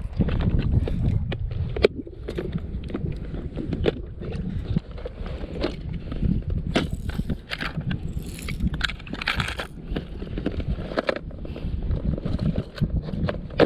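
Clear plastic tackle box being handled, its lid and sides clicking and the lures inside rattling, with a few louder crackly rattles in the middle. Steady wind rumble on the microphone underneath.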